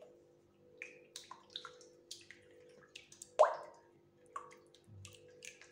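A hand mixing a runny mixture of milk, eggs, oil and sugar in a glass bowl: scattered wet squelches and plops, with the loudest splash about three and a half seconds in.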